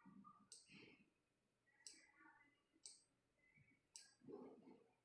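Faint clicks of a computer mouse, four single clicks about a second apart, each one presenting the next pure test tone to the patient's headphones in the audiometer software.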